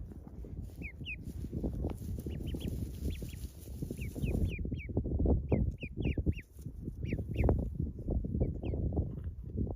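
A duckling peeping: many short, high peeps in quick runs, over soft scuffing and knocking that is loudest about halfway through.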